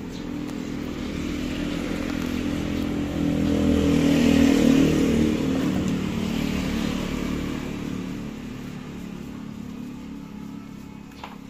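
Yamaha RX King's two-stroke single-cylinder engine running, growing louder to a peak near the middle and fading away again. It is running on its stock carburettor jets with a 'ngorok' (growl) air filter fitted, being tested for its note.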